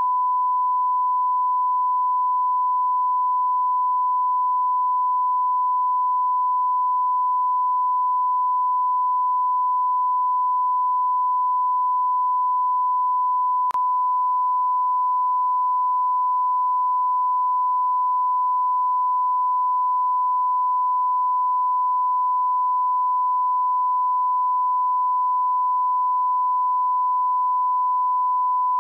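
Steady 1 kHz sine-wave test tone, the line-up tone that goes with a television test card, held at one pitch and level throughout. A faint click is heard about halfway through.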